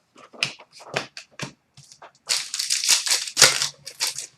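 Hockey trading cards and their packaging being handled: a run of short rustles and clicks, then a longer, denser rustle from about two seconds in.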